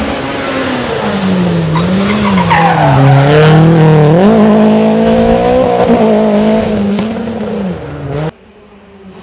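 Renault Clio Williams rally car's 2.0-litre four-cylinder engine running hard past the roadside. Its pitch dips, rises sharply, holds high, then falls, and it is loudest in the middle. It cuts off abruptly about eight seconds in, and a much quieter engine sound follows.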